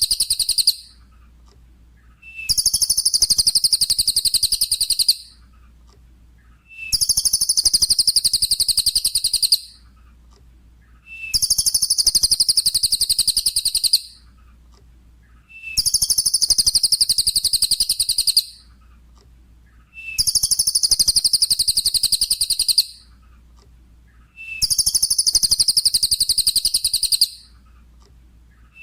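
Cililin songbird song: a high, rapid trill about two and a half seconds long, each phrase opening with a short lower note. The phrase repeats identically about every four and a half seconds, a looped master recording for tutoring caged birds after their moult. A faint low hum fills the gaps.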